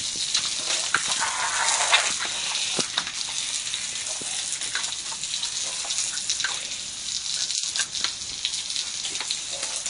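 Garden hose nozzle spraying a stream of water onto wet concrete: a steady hiss and splatter with scattered sharper splashes, cutting off just after the end.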